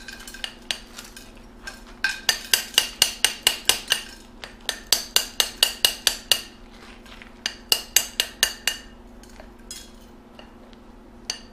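Adjustable wrench tapping a freshly cast metal bar to chip off the crust of glassy smelting flux: quick runs of sharp, ringing metallic clinks at about five a second, in three bursts with short pauses between.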